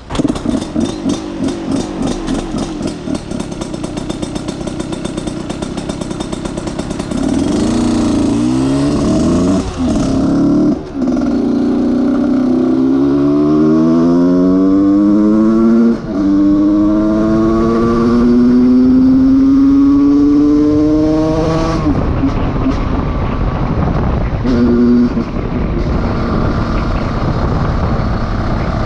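Husqvarna SM 125 single-cylinder engine breathing through a new handmade exhaust end can: a pulsing low-rev note, then about a quarter of the way in it opens up and the revs climb hard in several steps, with short drops between them like gear changes. About three-quarters through the throttle closes and the engine falls back to a lower, uneven note with a couple of blips.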